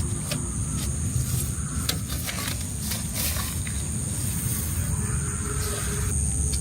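Steady high insect drone, like cicadas or crickets, over a low rumble, with scattered short clicks and rustles.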